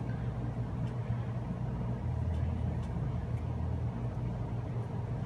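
Steady low mechanical hum, with a deeper drone joining it for about two seconds midway, and a few faint clicks.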